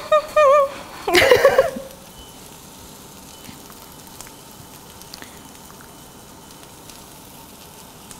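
A voice briefly sings a wavering note, then gives a short loud exclamation or laugh. After that, a faint steady sizzle with a few small ticks from tortillas warming in a frying pan.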